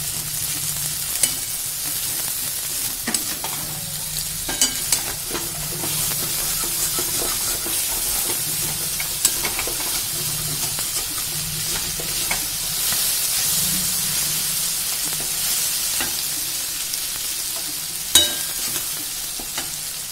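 Peas, tomato and ground masala paste sizzling in oil in a metal kadai while a flat steel spatula stirs and scrapes, clicking against the pan now and then, with a sharper knock near the end.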